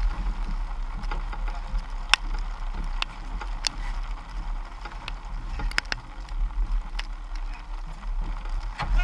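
Steady low rumble aboard a small fishing boat at sea, with a giant bluefin tuna splashing at the surface beside the hull. Scattered sharp clicks and knocks come through it, about eight or nine in all.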